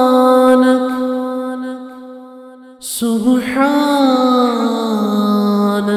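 Wordless chanting in one voice: a long held note fades out, then a second long note begins about three seconds in and is held, sliding slowly in pitch.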